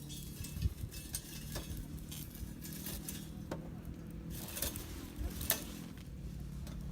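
Food sizzling in an iron skillet over a small fire, with a few sharp clicks of utensils.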